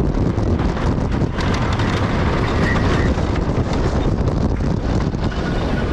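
Wooden roller coaster train running along its wooden track: a loud, continuous rumble and clatter from the wheels on the rails.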